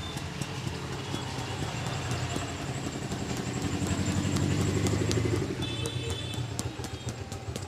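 Street traffic: a motor vehicle's engine running, swelling louder around the middle and then easing off, with many short sharp clicks over it. Brief high chirps sound a little after the loudest part.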